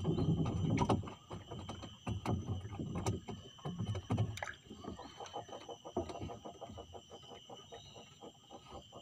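Fishing hand line being worked by hand in a small wooden boat: irregular soft knocks and rubbing, louder in the first few seconds, then a quicker run of small clicks in the second half. A steady faint high hum lies underneath.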